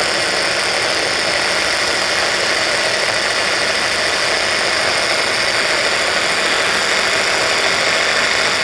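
Electric mini chopper (hand-blender motor on a chopper bowl) running steadily at full speed, its blades whirring through a thick avocado, spinach and walnut sauce; it is switched off right at the end.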